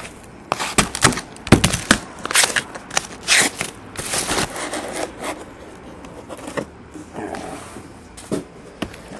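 Cardboard hobby boxes and their packaging being handled and slid out of a shipping case: a quick run of sharp scrapes and rustles for about the first five seconds, then quieter scuffing as the boxes are stacked.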